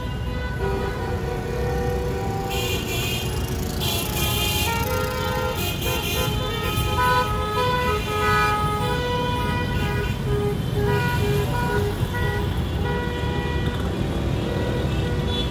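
A parade of cars and a motor scooter driving slowly past over a steady low rumble of engines and traffic, with car horns tooting again and again at several pitches.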